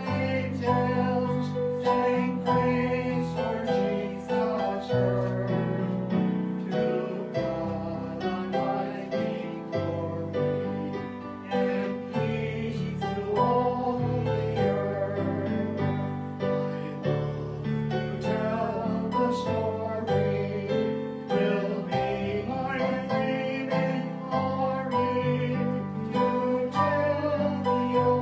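Hymn music on instruments, a steady flow of plucked notes and chords.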